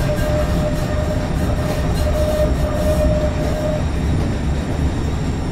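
Stadler Citylink tram-train running, heard from inside the passenger car: a steady rumble from the running gear, with a steady high whine that stops almost four seconds in.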